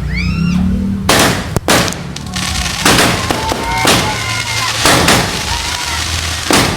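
A 16-shot 'Tree of Life' fireworks cake firing in sequence: sharp bangs roughly a second apart, with brief whistling tones between some shots.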